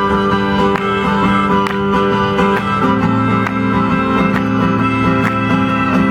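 Instrumental music with no singing: a strummed acoustic guitar over sustained chords, the harmony shifting to a lower bass note about halfway through.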